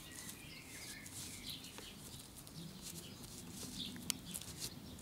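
Faint clicks of an old drive-cart roller chain being flexed by hand, its links stiffened and partly seized, with one sharper click about four seconds in. Birds call faintly in the background.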